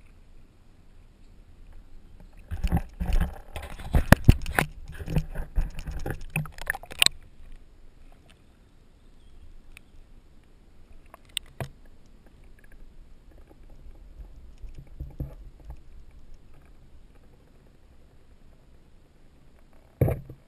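Lake water splashing and knocking against a GoPro Hero2's waterproof housing as it is plunged under, a dense run of crackles and knocks from about three to seven seconds in. After that comes the quieter muffled sound underwater, with a few faint clicks and a single sharp knock near the end.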